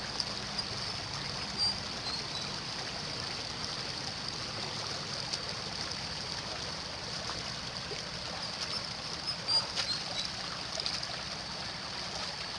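Shallow muddy water rushing steadily over rocks, with a few brief splashes as a hand net is worked through it, the loudest about nine and a half seconds in.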